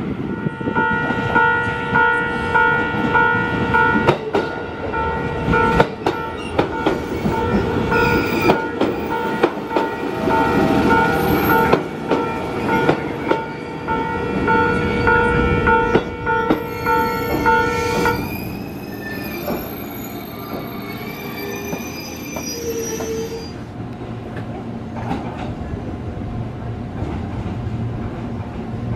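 Japanese level-crossing warning bell ringing in a steady repeating ding while a JR East 205 series commuter train passes, its wheels clacking over the rail joints. The bell stops about two-thirds of the way through; then come high wheel squeal and the steady low hum of a train coming into a station.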